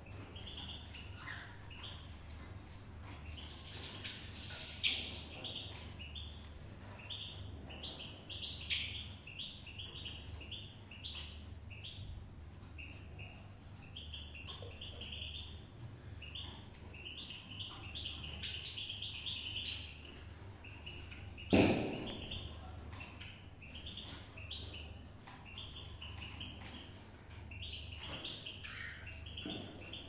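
Java sparrow chicks calling with rapid, repeated high cheeps. About two-thirds of the way through there is one sharp knock, the loudest sound, over a steady low hum.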